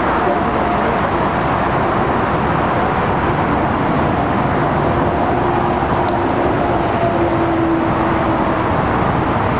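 Boeing 737's CFM56 turbofan engines running at low taxi thrust as the airliner rolls slowly past: a steady, even jet rumble with faint hums and no spool-up.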